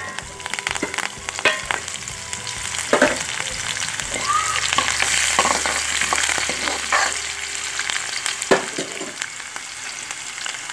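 Chopped garlic and green chillies sizzling in hot oil in a kadhai among crackling tempering spices (cumin, fenugreek and mustard seeds). A ladle stirs through it, clinking and scraping against the pan a few times.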